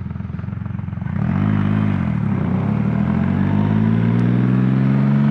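Triumph Rocket 3's three-cylinder engine pulling away under throttle, with wind rush. The revs climb, drop once at a gear change about two and a half seconds in, then climb steadily again.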